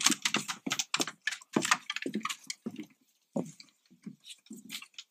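Footsteps on a wooden plank boardwalk: an irregular run of shoe knocks and clicks on the boards, with a short pause about three seconds in.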